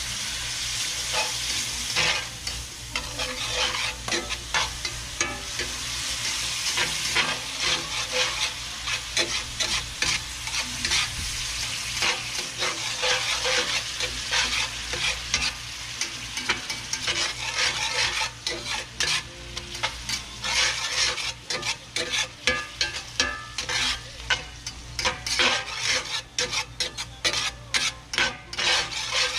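Chopped dove meat sizzling in a cast-iron skillet while a slotted metal spatula stirs and scrapes it around the pan, the scrapes and clicks coming thicker in the second half. The pan juices hiss steadily, a little water having just been added because the stew was drying out.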